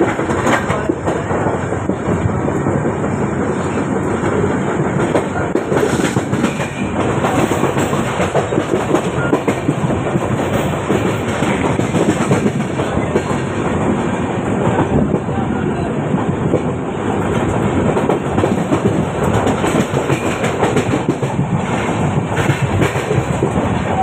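Passenger train coach running at speed, heard at its open door: a steady noise of steel wheels on the track, with a few clicks from the rail joints.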